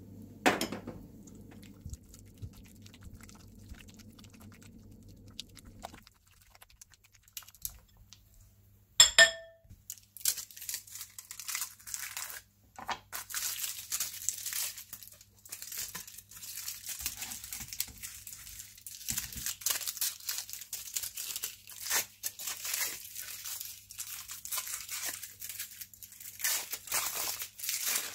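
Dense, irregular crinkling and rustling from about ten seconds in, after a faint steady hum that stops about six seconds in and a single sharp clatter just after nine seconds.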